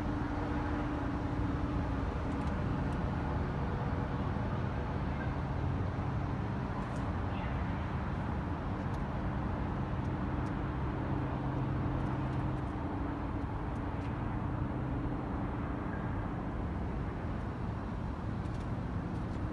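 Steady city background noise: distant traffic noise with a faint low hum under it.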